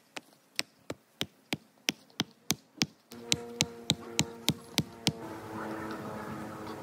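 Hammer driving a wooden stake into sandy ground: a steady run of light strikes, about three a second, stopping about five seconds in. From about three seconds in, a fly buzzes close by.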